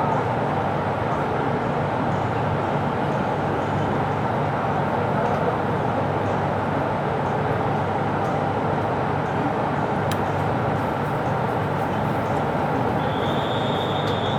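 Diesel railcar's engine and running noise heard from inside the carriage, a steady even drone with a low hum. Near the end a thin, high, steady squeal starts up.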